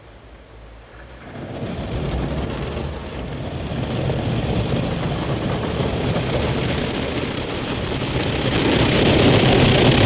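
Automatic car wash machinery heard from inside the car: a loud, steady rushing noise starts about a second in and grows louder near the end.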